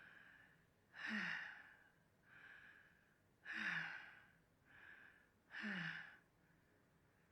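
A sick woman's laboured, short-of-breath breathing: three heavy gasping breaths about two seconds apart, each a quick intake followed by a louder breath out that trails off in a falling voiced sigh.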